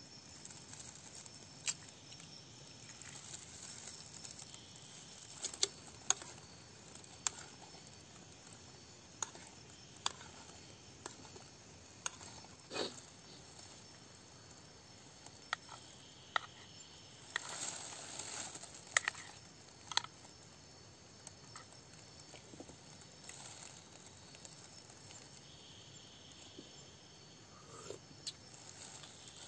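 A spoon clinking and scraping in a metal mess tin as someone eats, in sharp scattered clicks, over a steady chirring of crickets and other night insects. Near the end come a couple of knocks, heard as something hitting a tree.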